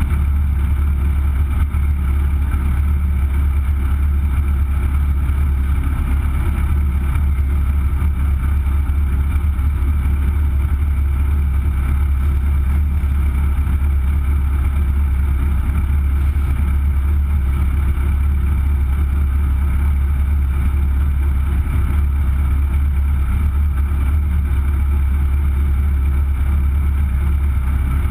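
Legend race car engine idling steadily while the car sits stationary, picked up by a camera mounted on the car itself, with no revving.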